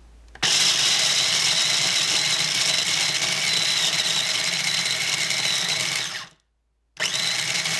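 Small electric food chopper running, its blade grinding whole hazelnuts into coarse meal. The motor starts about half a second in, runs steadily for nearly six seconds, stops dead, and is switched on again near the end.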